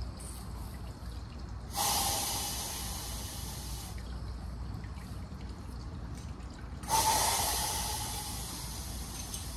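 Propane torch hissing in two sudden surges, about two seconds in and again about seven seconds in, each fading away over a couple of seconds.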